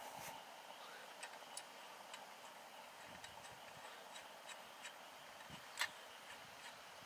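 Faint, irregular light clicks and ticks from a hand handling the top of a small lantern, over a low steady hiss, with one louder click near the end.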